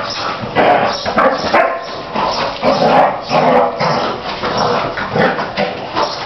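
Six-month-old Belgian Malinois puppy barking repeatedly in quick, short barks, about two to three a second, worked up while it jumps at and tugs on its trainer in early protection training.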